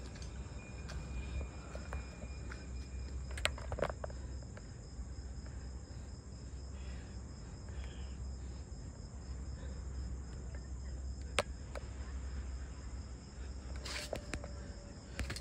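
Crickets chirring steadily in a continuous high-pitched drone, with a low rumble underneath and a few short sharp clicks.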